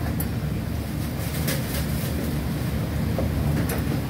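Kitchen knife chopping boiled octopus on a plastic cutting board: a few light knocks of the blade on the board. Under them runs a steady low rumble, which is the loudest sound.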